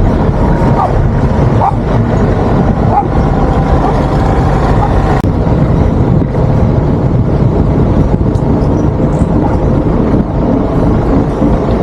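Motorhome on the road: steady engine and road noise.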